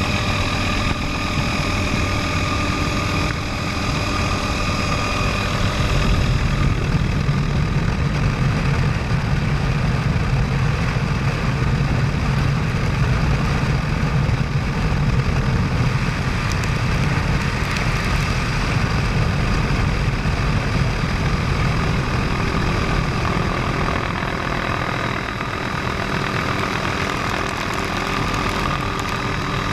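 Helicopter in flight: a steady engine and rotor drone with a few steady tones over it. The low rumble grows stronger about six seconds in and eases again near the end.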